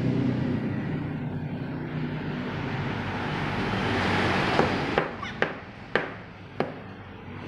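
A low rumble of passing traffic fades out, and a rushing noise swells and dies away. Near the end come four sharp knocks or taps, a little over a second and a half from first to last.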